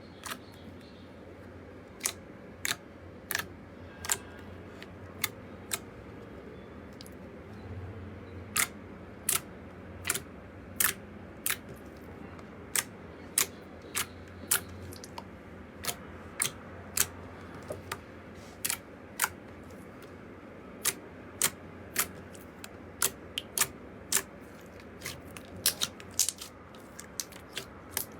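Slime being pressed and poked, giving sharp clicking pops, about one or two a second at uneven spacing.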